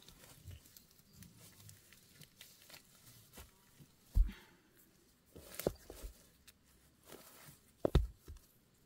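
Heavy river stones being set down and knocked against one another, a few sharp clacks, the loudest about four seconds in and again near the end, between soft rustling of grass.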